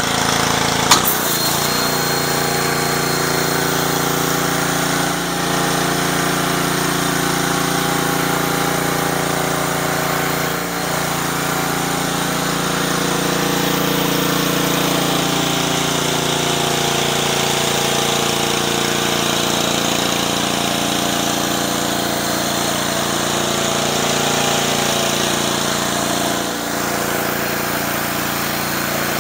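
Honda GCV190 engine of a Simpson 3000 psi pressure washer running steadily under load, with the hiss of high-pressure water jets on concrete from a surface cleaner attachment. The level dips briefly a few times.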